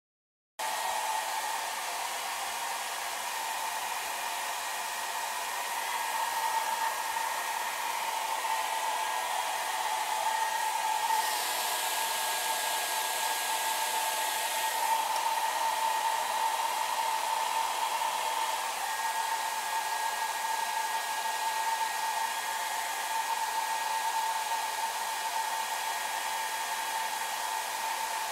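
Handheld hair dryer blowing steadily with a high hum, starting abruptly about half a second in; its hiss turns harsher for a few seconds around the middle.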